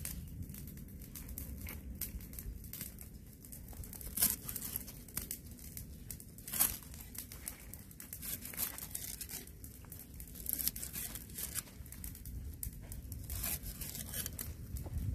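Heavy knife slicing fresh lemongrass stalks on a wooden block: a run of crisp cuts through the fibrous stalks, with the blade knocking the wood, and two louder chops about four and six and a half seconds in.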